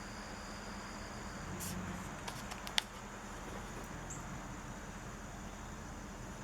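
Hands handling a small pocketknife and its packaging: a few light clicks and one sharp click about three seconds in, over a steady background hiss.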